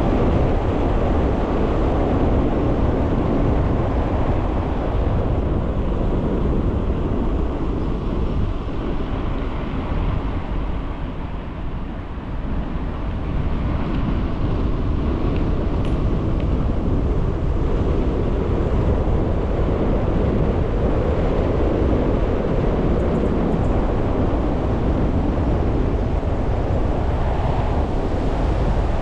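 Wind buffeting the microphone of a bicycle-mounted or rider-worn camera while riding, a steady low rushing roar that eases briefly about halfway through.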